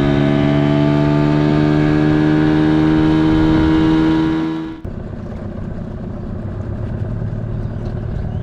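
Boat's outboard motor speeding up, its pitch climbing and then holding steady. About five seconds in it cuts off abruptly, giving way to a lower, rougher engine sound.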